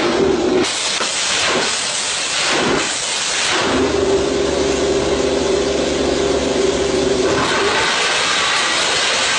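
Suzuki GSX-R racing motorcycle engine revved on a rear paddock stand: a few short throttle blips, then a steady held rev for about three seconds before it drops back to a rougher, lower running near the end.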